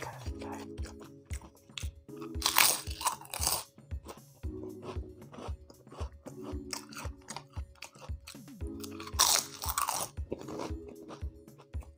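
Close-up crunching and chewing of crispy fried potato snacks, a steady run of crunches through the whole stretch, with two louder crackling spells: one about two and a half seconds in and one about nine seconds in.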